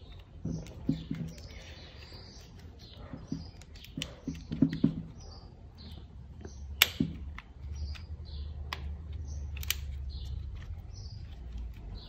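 Light clicks and taps of a VW Jetta Mk6 door lock mechanism's plastic parts as a high-tension spring is worked into its slot by hand, with a sharper click about seven seconds in.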